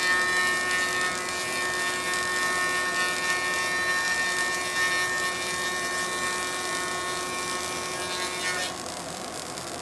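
Welding on a car's body panels: a steady electric buzz with a hiss underneath, holding level and then stopping near the end, leaving a fainter hiss.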